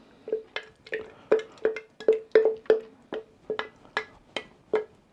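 A utensil knocking against a bowl about three times a second, each knock with a short ring, as freshly churned butter is worked in the bowl without butter paddles.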